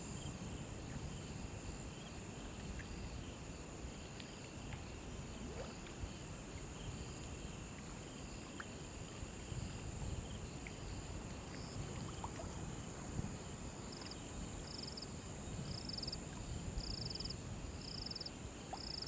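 Crickets chirping by a river: a steady high trill runs throughout, and in the second half a nearer cricket chirps in short pulses about once a second, over a low rush of flowing water.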